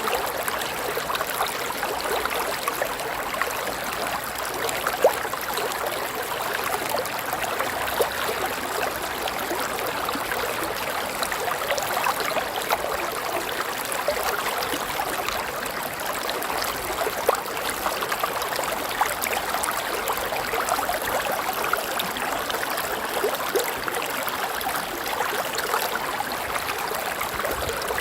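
River water flowing and babbling over rocks, a steady rushing with small splashes and gurgles.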